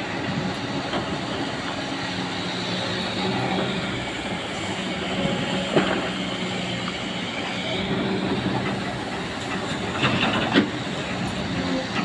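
Excavator working: its diesel engine running steadily, with a few sharp metallic clanks, one about halfway through and two close together near the end.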